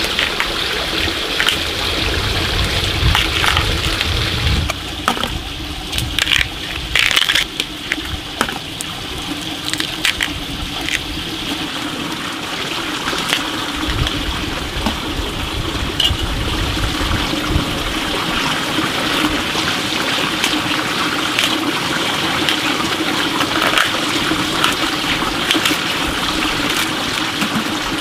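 Steady rushing of flowing water, with scattered crackling snaps and rustles as papery bamboo-shoot husks are torn off by hand.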